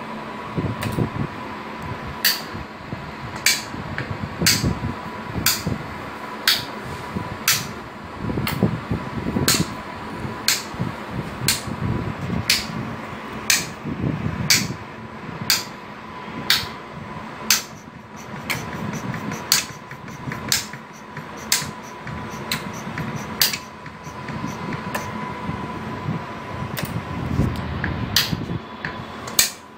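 Graviner OMD Mk5 oil mist detector running: a steady fan-like hum with a faint steady high tone, and sharp clicks about once a second.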